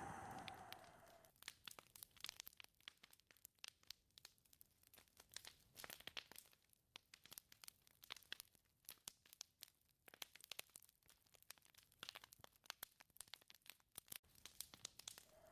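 A gust of wind with a faint whistle dies away in the first second. After it there is near silence, broken by faint, scattered crackles.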